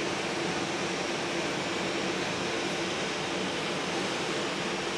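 Airbus A320's twin CFM56 jet engines at takeoff thrust as the airliner rolls down the runway: a steady, even rushing noise with a faint low hum underneath, holding level throughout.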